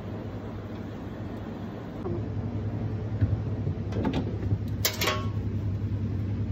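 Steady low hum of commercial kitchen refrigeration, a little louder from about two seconds in, with a metal wire rack clattering and rattling against a shelf about four to five seconds in.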